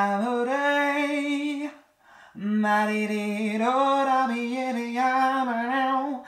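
A man singing unaccompanied: two long held phrases with a short breath between them about two seconds in.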